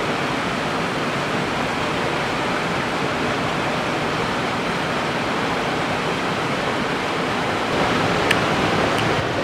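River water rushing over rocks, a steady wash of noise. Near the end it gets a little louder and there are two sharp clicks.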